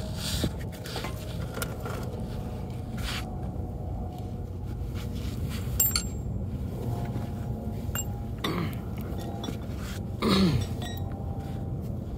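Metal tools and parts clinking and scraping during work on a car's front suspension, over a steady low hum. Two short sounds slide down in pitch near the end, and the second is the loudest.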